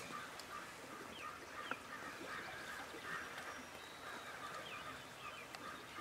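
Distant flock of large birds calling in short, repeated notes, several a second, with thin chirps of small songbirds over them.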